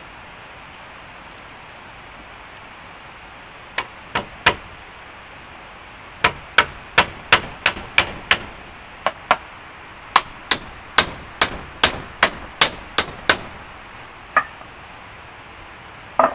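Hammering during construction of a wooden hut: sharp blows in quick runs of about three a second, separated by short pauses, about two dozen strikes in all.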